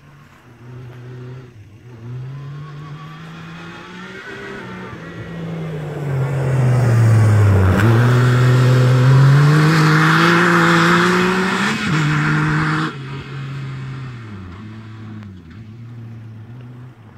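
Yamaha YXZ1000R side-by-side's three-cylinder engine revving hard as it drives past. Its pitch dips and then climbs steadily under acceleration, with a loud hiss while it is closest, then it drops back and fades near the end.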